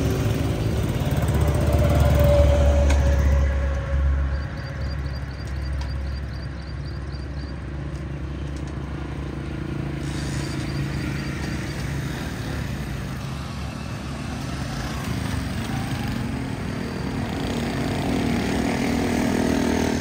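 Honda CD 70's small single-cylinder four-stroke engine running as the motorcycle pulls away with two riders, loudest in the first few seconds, then fainter as it rides off along the road, swelling again near the end.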